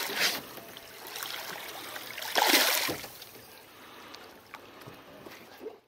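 Water splashing as a striped bass is let go over the side of a boat and kicks away, with a louder splash about two and a half seconds in.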